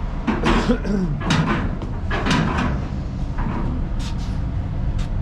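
Indistinct voices talking in short bursts over a steady low rumble, with two short knocks near the end.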